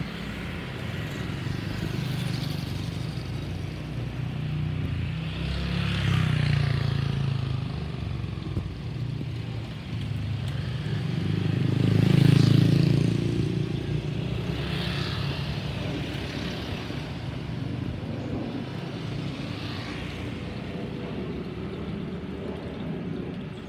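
Steady low rumble of a Boeing 737-800's CFM56 jet engines as the airliner flies over, with louder swells about six and twelve seconds in.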